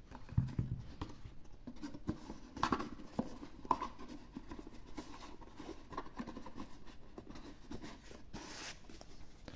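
Hands handling and closing a cardboard knife box: the card rubbing and scraping, with a few soft taps and clicks, and a short sliding scrape near the end.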